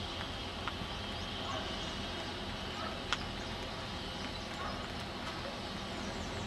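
Distant Shay geared steam locomotive working with a train: a faint, steady rumble without distinct exhaust beats, and a sharp click about three seconds in.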